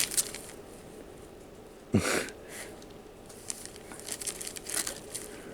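Paper and tape on a wrapped gift box crinkling and tearing in short, scattered bursts as an animal claws and bites at it, with a louder knock of the box about two seconds in.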